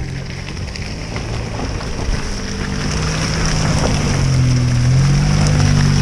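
A vehicle engine running under load; its pitch climbs from about halfway in and then holds. A steady hiss runs behind it.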